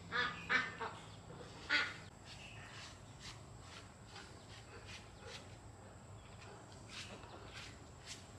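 Four short animal calls in the first two seconds, followed by faint scattered clicks.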